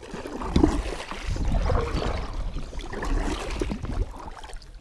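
Kayak paddle strokes: the blade dipping and pulling through the water with splashing and dripping, swelling a few times about a second apart over a low rumble.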